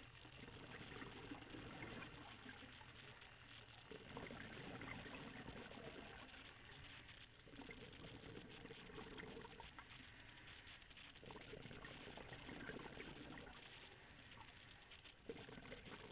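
Scuba diver breathing through a regulator underwater: faint bubbling and gurgling of exhaled air in spells of a few seconds, with short quieter gaps between breaths.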